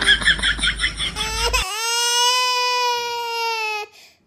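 A loud, long wailing cry, held at one pitch for about two seconds and sagging slightly before it stops near the end. It follows about a second and a half of rapid pulsing chatter.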